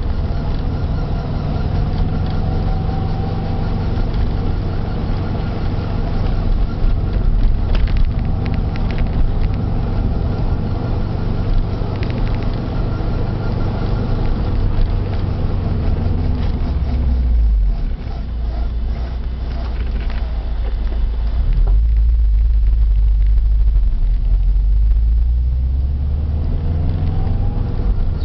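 Subaru Impreza GC8 on the move, a steady low rumble of engine and road noise with a faint hub-bearing noise, hard to pick out, that marks a failing wheel hub bearing. The rumble dips about 17 seconds in and swells again a few seconds later.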